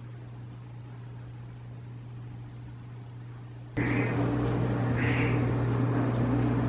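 A steady low hum. About four seconds in it suddenly gets louder, and a cat gives two short meows about a second apart.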